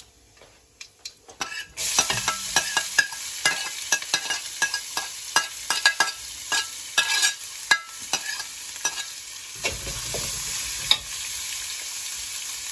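Chopped red onion dropped into hot oil in a steel kadai, sizzling up suddenly about two seconds in. A metal spoon clicks and scrapes against the plate and the pan as the onion is pushed in and stirred, then the onion settles into a steady sizzle.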